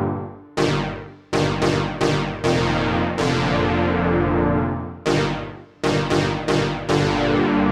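MOK Miniraze wave-slicing synthesizer plugin playing a keys-like patch: a series of struck chords, each with a bright attack whose highs fade faster than the low notes. Some chords ring on for over a second, others follow in quick succession.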